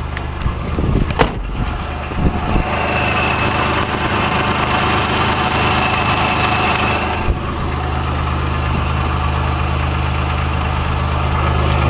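Nissan Hardbody's 3.0-litre VG30i V6 idling warm, a steady low hum, with a click about a second in and a louder, higher hiss with a thin whine from about 2.5 to 7 seconds. The owner is chasing a noise that seems to come from the exhaust and that he cannot explain, having ruled out piston slap and spark ping.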